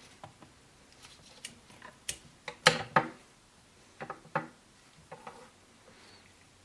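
Cologne packaging and bottle being handled during unboxing: a scattered series of light clicks and taps. The loudest knocks come a little under three seconds in, and another pair about four seconds in.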